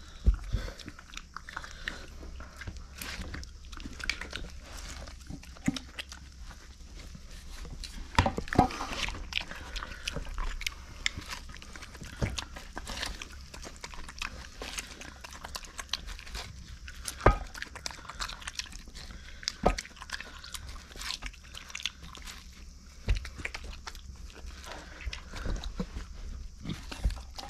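Micro pig eating corn on the cob from a stainless steel bowl: irregular chewing and crunching, with a few louder sharp knocks now and then.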